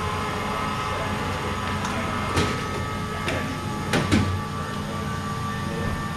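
Steady workshop hum with a few short knocks and clunks as parts and the aluminium supercharger housing are handled on the bench, the loudest a close pair about four seconds in.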